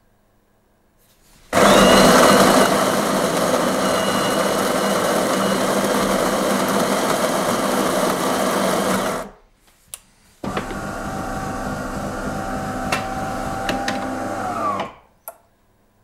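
De'Longhi Dinamica Plus superautomatic coffee machine's built-in stainless-steel burr grinder grinding beans for a single espresso, starting about a second and a half in and stopping after about seven and a half seconds. After a pause of about a second the machine runs again, quieter, with a steady hum for about four seconds as the brew cycle continues.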